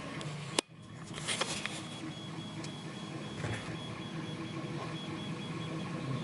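Camera being handled: a sharp click about half a second in, then soft rubbing and a few light clicks over a faint steady high whine.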